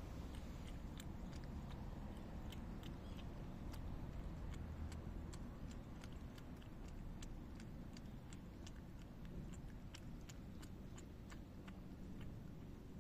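Cat lapping milk from a shallow dish: quick, soft wet clicks of the tongue, a few a second and unevenly spaced, over a low background rumble.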